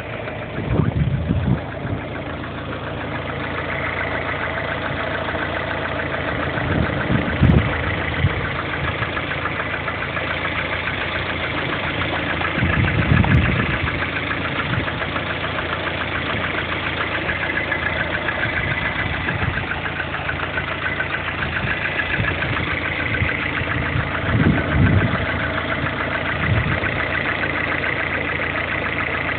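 Lada Kalina's 1.4-litre 16-valve four-cylinder engine running at idle with a rapid, regular knock from the engine, with a few brief louder low surges along the way.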